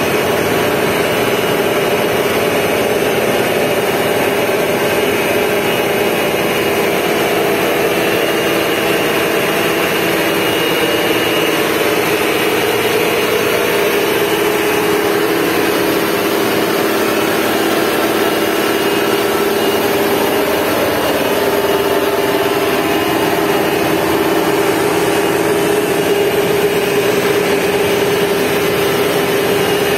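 Passenger riverboat's engine running steadily while under way, an even mechanical hum.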